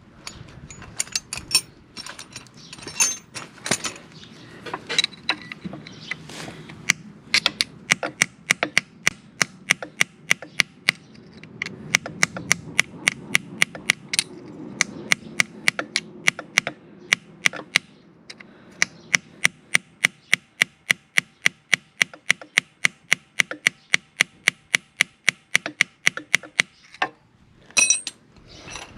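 Hand tools on a rounded-off motorcycle oil drain bolt: a few irregular metal knocks at first, then a long even run of sharp ratchet clicks, about two to three a second, as the tool works the stripped bolt, stopping shortly before the end.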